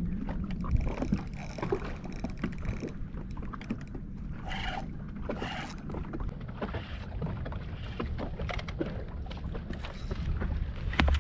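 Wind on the microphone and water lapping against a small boat's hull, with scattered small knocks and ticks and two brief rushes of noise about four and a half and five and a half seconds in.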